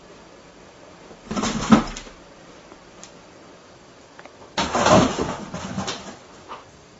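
Cardboard box scraping and thumping as a cat scrambles in and against it, in two bursts: one short one a little over a second in, and a longer one from just before five seconds.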